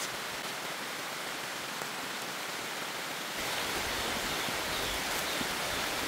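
Steady hiss of a rainforest insect chorus, crickets among it, with rain falling. A low rumble joins about three and a half seconds in.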